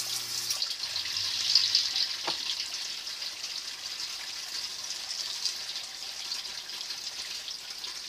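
Water running and splashing into a sump pit, a steady hiss that eases slowly. A low electric hum, the sump pump finishing its cycle, cuts off about half a second in.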